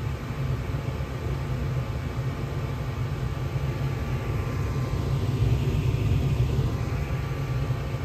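Gas furnace firing in heat mode: the draft inducer motor and the lit burners running as a steady low rumble with a faint hum, the blower not yet on. It grows a little louder about two-thirds of the way through.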